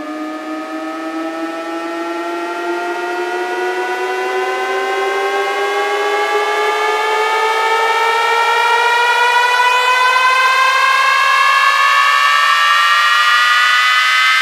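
Electronic riser sweep in a DJ sound-check track: a synthesized, siren-like tone with several layers that climbs slowly in pitch and grows steadily louder, building up to the drop.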